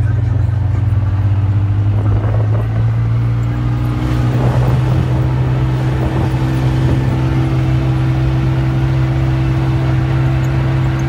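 Side-by-side UTV engine running steadily at low speed, a constant loud drone, heard from the seat of the open cab.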